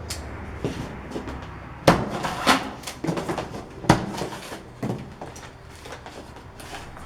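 A cardboard bicycle shipping box being cut open and handled: a series of sharp knocks, scrapes and rustles, the loudest about two and four seconds in.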